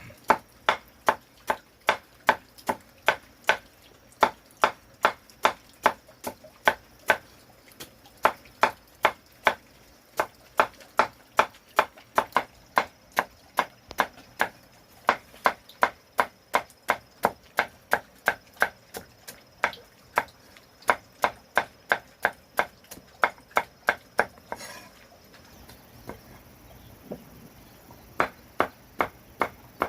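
Steady rhythmic chopping, a blade striking down about twice a second. It breaks off for a few seconds near the end, then resumes.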